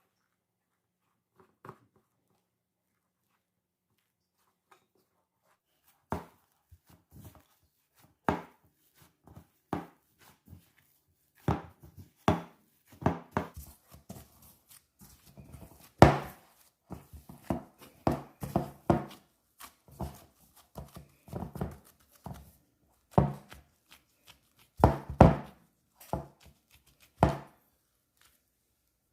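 Irregular knocks and taps of a utensil against a board or bowl during food preparation, starting about six seconds in, some coming in quick clusters.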